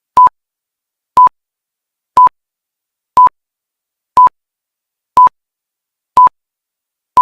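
Countdown-timer sound effect: a short electronic beep at one steady pitch, repeating about once a second with silence between.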